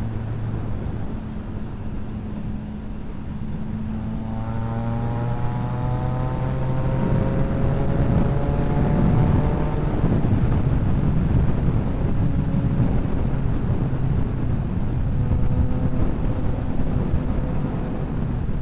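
Motorcycle engine running at highway speed under heavy wind rush, from the rider's seat. Between about four and ten seconds in a higher engine note climbs slowly and the sound grows louder as the bike accelerates.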